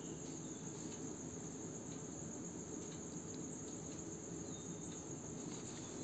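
Quiet room tone: a faint steady hiss with a constant high-pitched whine, and no clear separate event.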